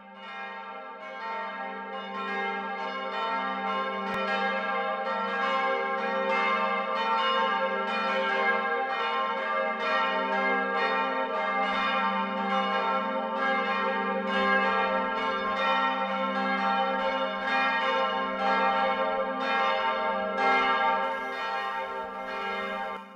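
Church tower bells pealing, several bells striking over one another with a steady, dense ringing. The ringing fades in over the first couple of seconds and falls away at the very end.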